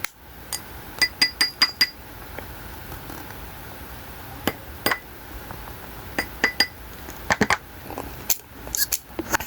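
Small dishes clinking: groups of sharp, ringing taps, five quick ones about a second in and further runs through the middle and near the end.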